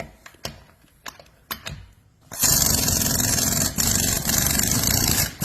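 A few light knocks and clicks, then about two seconds in a half-inch flex-head impact wrench hammers on a lug nut for about three seconds with its head flexed, with one brief pause partway through.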